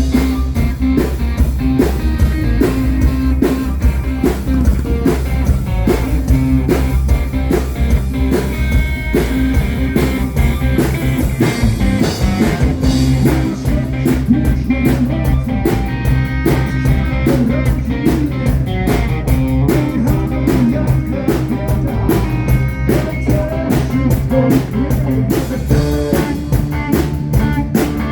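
Live blues-rock band playing: electric guitar over bass and drum kit with a steady beat.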